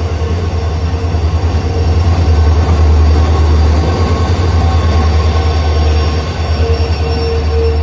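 Indian Railways diesel locomotive pulling a passenger train in alongside the platform: a loud, steady low engine drone, with a thin wheel squeal that grows stronger near the end.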